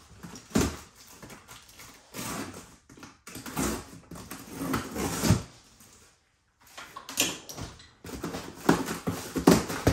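Cardboard box being opened by hand, its flaps pulled and rubbed: irregular scrapes and rustles, with a short pause about six seconds in.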